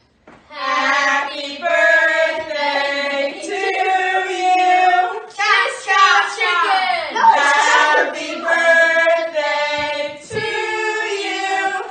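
A group of children singing together in long held notes, with one sliding swoop in pitch about halfway through.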